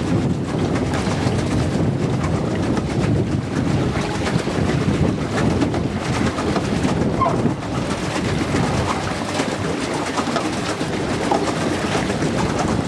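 Steady rumbling noise of a boat under way on open water, with a few faint bird chirps about halfway through.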